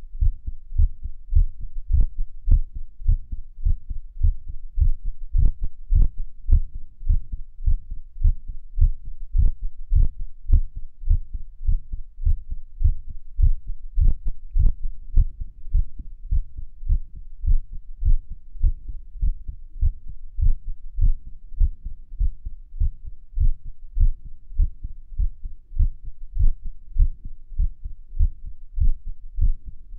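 Human heartbeat recorded on the chest at Erb's point: a rapid, continuous run of low lub-dub thumps, with occasional sharper clicks. The uploader calls the heartbeat irregular.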